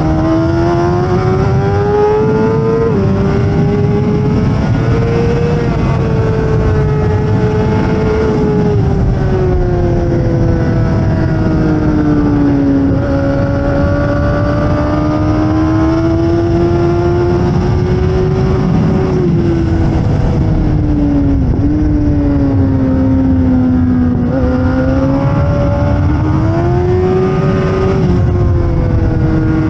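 2008 Suzuki GSX-R600's inline-four engine at high revs under race riding, its pitch rising and falling through the corners, with a few abrupt drops in pitch as it changes gear. A dense low rush of wind and road noise runs under it.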